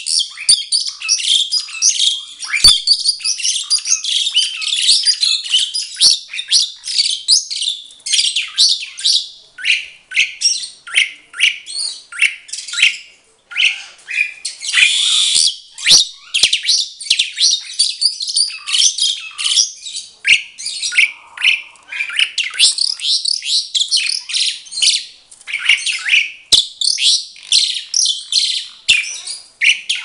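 Asian pied starling singing a fast, near-continuous stream of chirps, whistles and harsh squawky notes. About halfway through there is a brief pause, then a loud rasping note.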